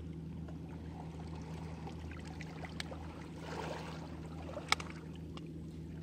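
Steady low motor-like hum, with small clicks and one sharp click a little over four and a half seconds in, as a kitchen knife works a fishing hook out of a small eel's mouth.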